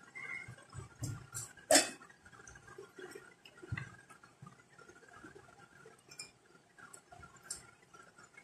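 Soaked chana dal being tipped into an empty stainless-steel mixer-grinder jar: a few clinks and knocks against the steel, the loudest about two seconds in, then faint scattered handling sounds.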